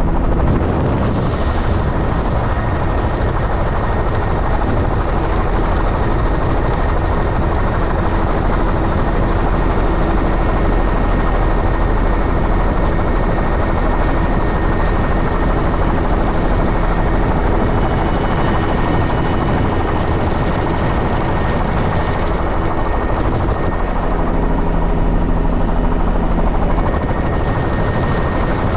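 Helicopter in flight heard from on board: a loud, steady drone of rotor and engine noise with a low hum underneath.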